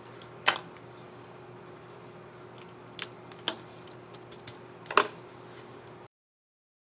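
Sharp plastic clicks from a laptop keycap and its scissor mechanism on an Asus ZenBook UX360CA keyboard: four clear clicks with a few lighter ticks between them, over a faint steady hum; the sound cuts off suddenly near the end.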